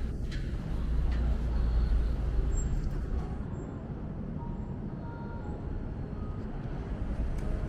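City street traffic: a steady low rumble of passing vehicles, loudest in the first few seconds and then easing off.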